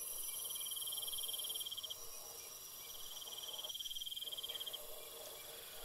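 A cricket trilling in bouts of about two seconds with short breaks between them. A fainter, higher-pitched steady insect sound stops about a second and a half in.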